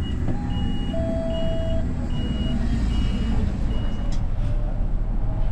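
A bus's electronic warning beeper, beeping steadily at a little over one beep a second and stopping about four seconds in, over the bus's engine running and road rumble. A brief squeal sounds about a second in.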